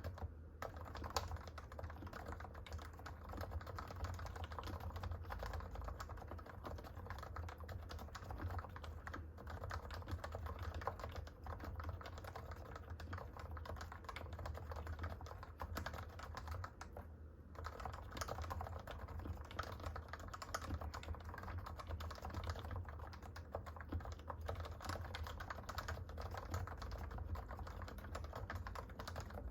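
Continuous fast typing on a Realforce 45g Topre electro-capacitive keyboard, its stems, springs, stabilisers and housings lubed, giving a damped, rounded keystroke that keeps a slight stock Topre rattle. The typing pauses briefly twice, shortly after the start and about two-thirds of the way through.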